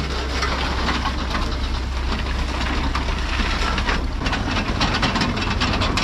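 Massey Ferguson 711 potato harvester clattering steadily as it starts working, with many rapid knocks and rattles, over the Massey Ferguson 35X tractor's engine running underneath.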